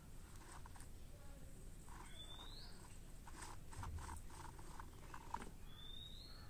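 A bird gives a short, rising whistled call twice, about two seconds in and again near the end, over a run of soft clicks and taps.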